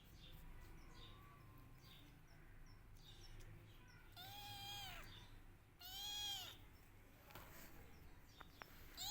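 Kitten meowing twice in high, drawn-out cries that rise and fall in pitch, about four and six seconds in: a kitten crying for its mother.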